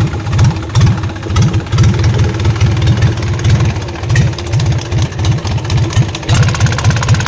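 Isuzu 4BC2 four-cylinder diesel engine running just after starting, with a heavy rhythmic knock. The knock was traced to the injection pump, not inside the engine.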